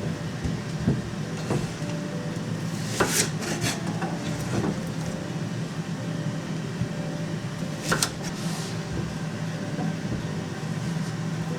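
Kitchen clatter: a few separate knocks and clinks of dishes or utensils being handled, the strongest about three and eight seconds in, over a steady appliance hum.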